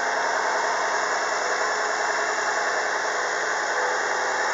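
Nissan VQ23DE 2.3-litre V6 engine idling steadily.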